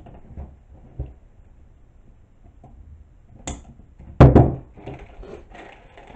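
Wooden clothespins and a wire wreath frame knocking and clicking as they are handled. A sharp snip of wire cutters comes about three and a half seconds in, and a louder wooden clatter follows just after.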